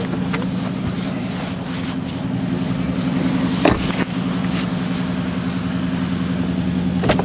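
2003 Mercedes-Benz E320's 3.2-litre V6 idling steadily, with a few sharp knocks, about halfway through and again near the end.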